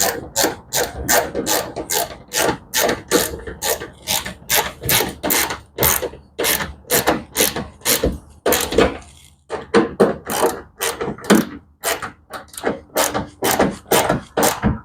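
A screw being driven by hand to fasten a plastic mud flap to the fender liner: a quick, even run of short clicking strokes, about two or three a second, with brief pauses while the tool is reset.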